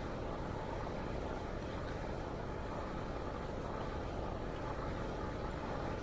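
Steady rushing noise of a bicycle ride on a paved path: wind on the microphone with the tyres rolling on the asphalt.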